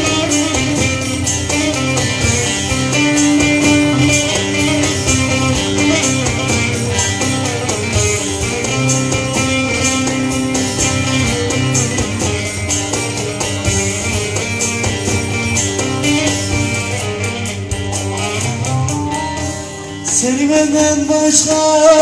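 Bağlama (long-necked Turkish saz) played in quick plucked runs, an instrumental passage of a Turkish folk-style song; near the end a man's voice begins singing over it.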